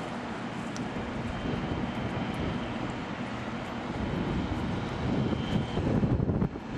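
Steady rumble of jet aircraft engine noise, with wind buffeting the microphone and growing louder in the second half.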